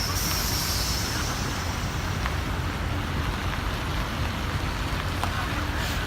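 Steady low rumble of large engines running, with an even noise over it and no clear single event.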